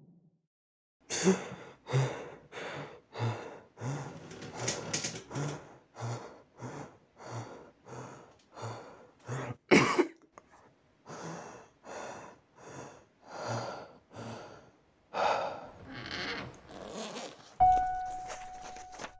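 A man breathing hard in quick, heavy gasps, about one and a half breaths a second, starting about a second in. Near the end a soft piano note comes in.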